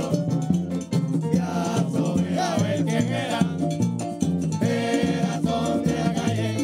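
Live Puerto Rican plena music: a group of men singing together over a steady beat of panderos (plena frame drums) and a scraped güiro.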